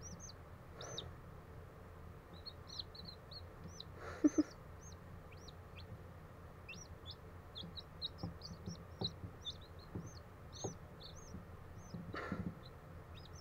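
Day-old chicks peeping: a continual run of short, high, arched peeps, several a second, with a couple of soft knocks about four seconds in.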